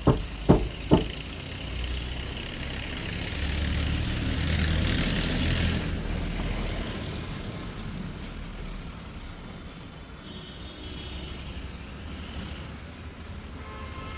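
Three sharp taps in the first second, then a passing road vehicle whose noise swells, is loudest about halfway through, and fades away.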